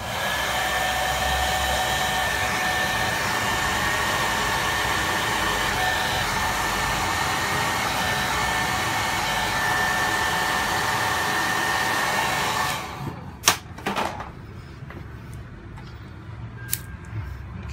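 Hot-air dryer blowing steadily with a constant whine, heating the phone's display frame so the rear camera can be lifted off. It is switched off about 13 seconds in, and a few sharp clicks follow.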